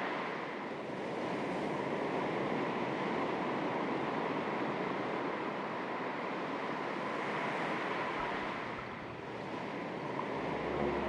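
Small waves lapping on the shore of a calm sea: a steady wash of water that swells and eases every few seconds. A low hum comes in near the end.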